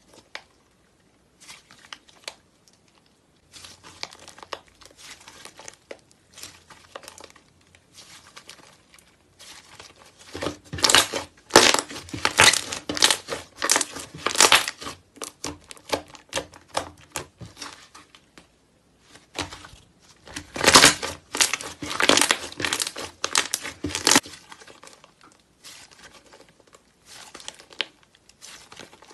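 Thick orange slime being kneaded, pressed and stretched by hand, giving a dense run of small crackles and crinkly pops. The crackling gets louder for a few seconds about ten seconds in, and again about twenty seconds in.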